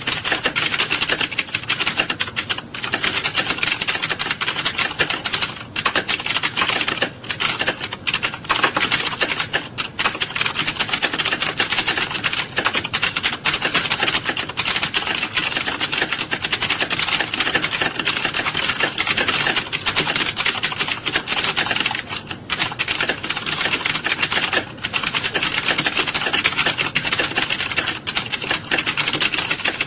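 Many computer keyboards being typed on at once in a typing class: a dense, continuous clatter of keystrokes with only brief lulls.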